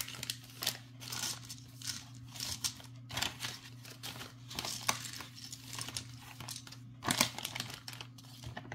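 Plastic bags of acrylic beads crinkling and rustling as they are handled, in irregular rustles with a louder burst about seven seconds in, over a steady low hum.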